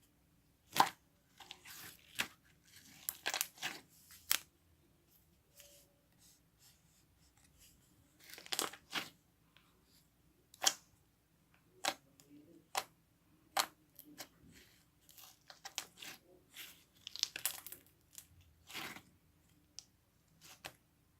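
Slime being played with by hand: irregular sticky pops, clicks and short tearing crackles as it is stretched and pressed.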